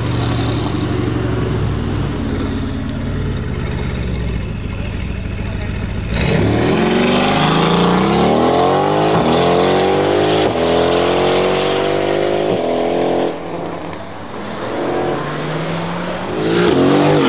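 Mercedes-AMG GT R Pro's twin-turbo V8 through a loud aftermarket Fi exhaust. It rumbles at low revs, then about six seconds in the car launches hard, the revs climbing and dropping through several quick upshifts before it fades as the car pulls away. Just before the end another hard rise in revs begins.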